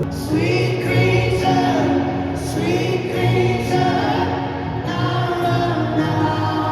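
Music with a group of voices singing together over a sustained accompaniment.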